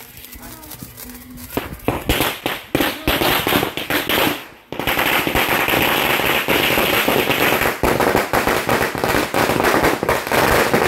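A string of firecrackers (a garland or 'ladi' cracker) going off in a rapid, continuous volley of bangs. It starts about a second and a half in, pauses briefly a little before the middle, then carries on as a dense unbroken rattle of cracks.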